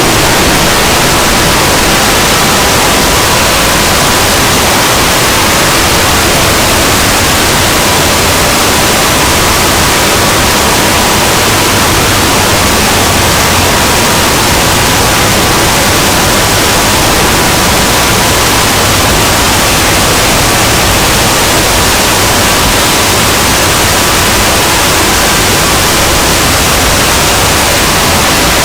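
Extremely loud, harsh static-like noise from a deliberately overdriven, distorted 'loud.exe' sound effect, unchanging, with a faint steady tone buried in it.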